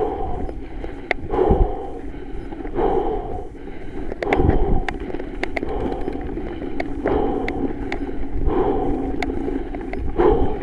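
Norco Range 7.1 full-suspension mountain bike riding down a dry dirt singletrack: tyres rolling over dirt, sticks and leaf litter, with the bike rattling and sharp clicks and knocks over bumps. A rising and falling rush of noise swells about every second and a half.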